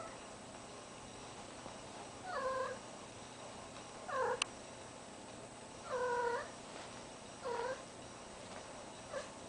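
Female cat in heat calling: about five short meows, one every one and a half to two seconds. There is a single sharp click right after the second call.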